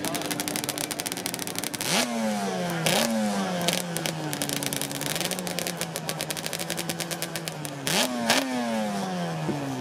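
Two-stroke motorcycle engine running, its throttle blipped sharply twice about two seconds in and twice more near the end, each rev dropping quickly back to idle.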